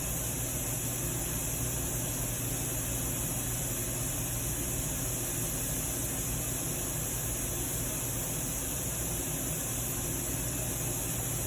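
Steady background hiss with a low, even hum, unchanging throughout: room or recording noise with no distinct event.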